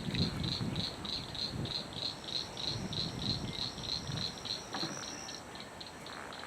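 Rhythmic high clicking chirps, about four a second, from a calling insect, with a thin high buzz for a few seconds in the middle. The angler takes the clicking for an alligator.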